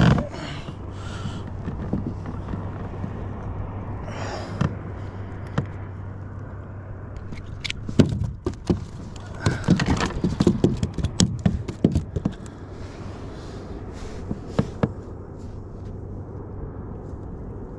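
A sand bass being brought aboard a plastic fishing kayak and handled on the deck: sharp knocks and thumps of the fish and tackle against the hull, thickest in a cluster about eight to twelve seconds in, over a steady low hum.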